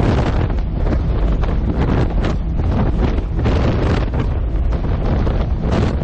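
Heavy wind buffeting the microphone, loud and rough throughout, cutting off abruptly at the end.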